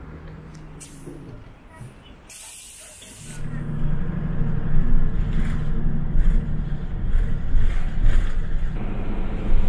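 A short air hiss, then a heavy vehicle's engine rumbling loudly from a few seconds in.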